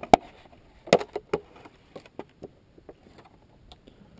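Wiper blade packaging and small plastic adapter parts being handled: a sharp click just after the start, another few clicks about a second in, then scattered light ticks and rustles.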